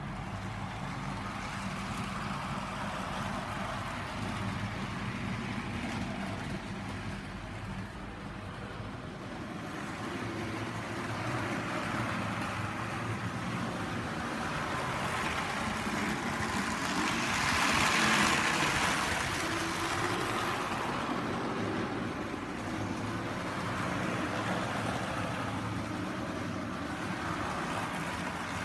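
Model train running around the track: steady wheel-on-rail rumble and motor hum, swelling louder as the train passes close about two-thirds of the way through, then fading back.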